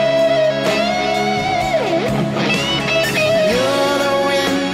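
Background music: an instrumental passage of a song, led by a guitar playing a slow melody of long held, bending notes over strummed chords.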